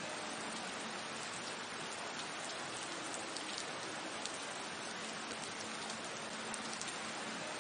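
A steady, even hiss like falling rain, with faint scattered ticks through it.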